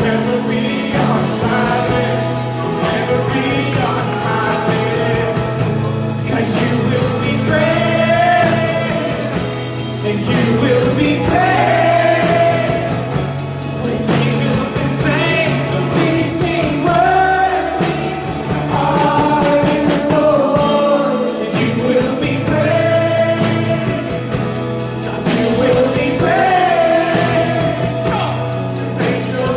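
Worship band playing a contemporary gospel song, with singers leading and steady accompaniment underneath.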